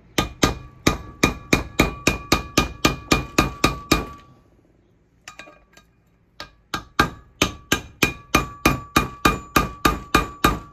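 Hammer striking a steel bearing race driver, driving a wheel bearing race into the hub of a new VW Beetle disc brake rotor. Quick, steady metal-on-metal strikes, a little over three a second, each with a short metallic ring. They come in two runs with a pause of about two seconds between them.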